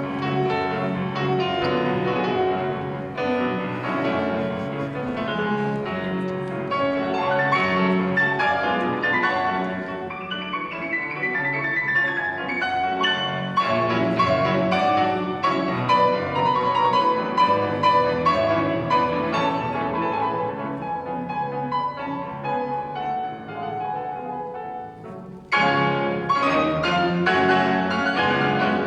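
Piano duet playing classical music, with a sudden louder, brighter passage near the end.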